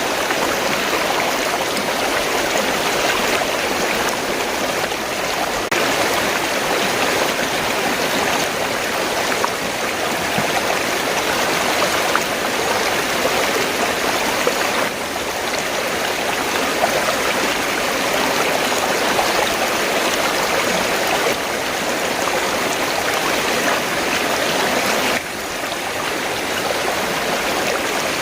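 River water rushing and gurgling steadily, with a few sudden small shifts in level.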